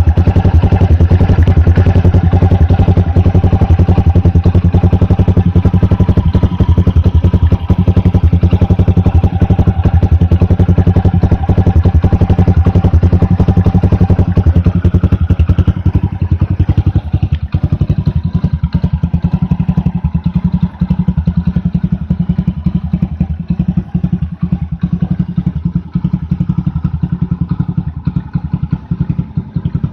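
Honda Super Cub 90's single-cylinder four-stroke engine running through a Moriwaki titanium Monster aftermarket exhaust, a steady rapid train of exhaust pulses. About halfway through, the sound drops a little and becomes thinner.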